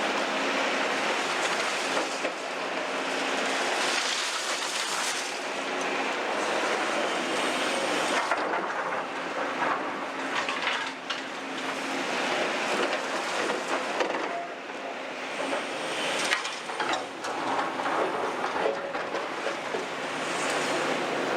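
CAT 352 excavator working its bucket through demolition rubble: a steady clatter and crunch of broken concrete and debris with scattered sharp knocks, over a faint diesel engine hum.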